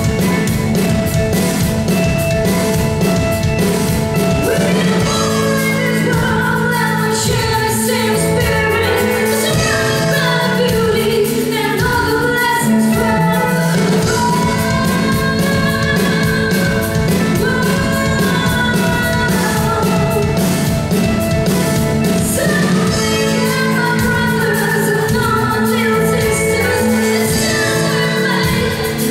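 Live rock band playing an original song: a woman sings lead over drum kit, electric bass and electric guitar, her voice coming in about five seconds in.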